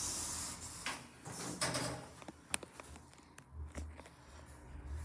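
Lift doors sliding, with a hiss that fades in the first second, a few clicks and a sharp clack about two and a half seconds in. A low hum comes in near the end.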